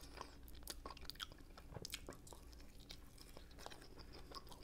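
Quiet, close-up chewing of homemade pork ribs, with many small mouth clicks.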